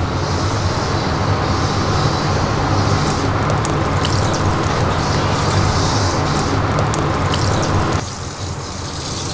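Steady roar of a commercial kitchen's gas range and ventilation, a dense low rumble that thins a little about eight seconds in.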